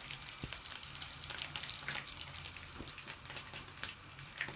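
Omena (small dried fish) deep-frying in hot oil: a steady sizzle with scattered crackles, the fish fried dry and crunchy.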